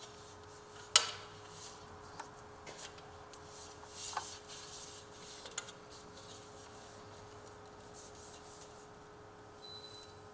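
Handling noise as a door sweep is fitted onto the aluminium expander strip of a security door: a sharp click about a second in, then light rubbing and a few small knocks.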